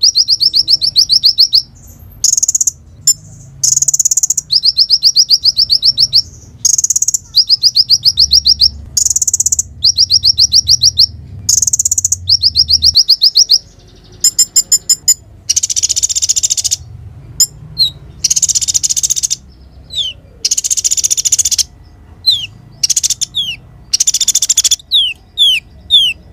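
Sunbird song, the 'konin' kept by Indonesian bird-keepers, singing vigorously. Phrases of rapid high ticking trills about a second long alternate with short harsh, hissing phrases, and in the later part quick high whistles slide downward.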